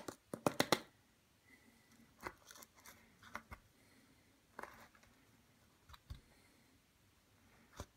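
Soil moisture sensor probe being pushed into dry soil: a quick run of crunching, scraping clicks in the first second, then scattered softer clicks and scrapes.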